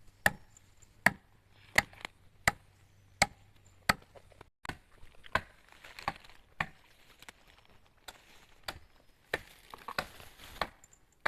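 Wood being chopped with a blade: sharp chops about every 0.7 s at first, then quicker and more irregular in the second half.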